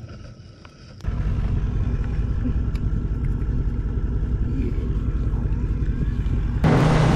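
Quiet ambience with a few faint ticks, then a steady low rumble that starts abruptly about a second in. Near the end, louder and loudest, a boat under way: the outboard motor's steady hum under a wash of wind and water noise.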